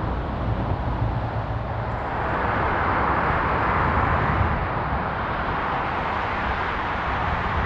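Steady rush of motorway traffic from the M1 below, tyre and engine noise blended together, swelling for a few seconds in the middle as vehicles pass.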